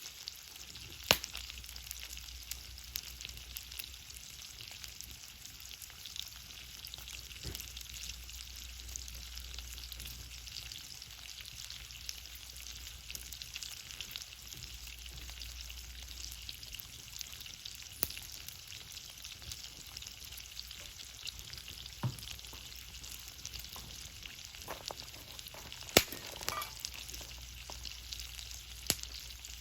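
Wood and charcoal fire burning in a fire pit: a steady sizzling crackle with a handful of sharp pops, the loudest near the end.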